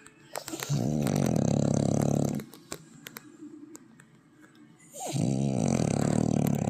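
Snoring: two long snores, each about a second and a half, with a pause of about two and a half seconds between them.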